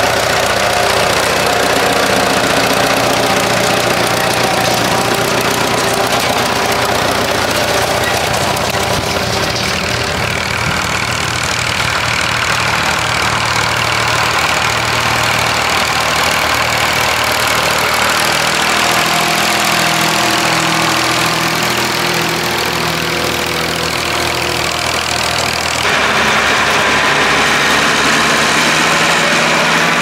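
Tractor engines running steadily under load while pulling ploughs. The engine note changes abruptly a few times as the sound switches from one tractor to another.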